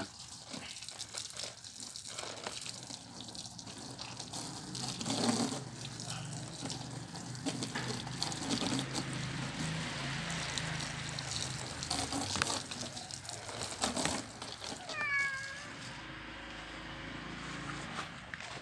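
Water from a garden hose spraying onto a cat during a bath, with a few sharp knocks; the cat meows once near the end, a single call that falls in pitch.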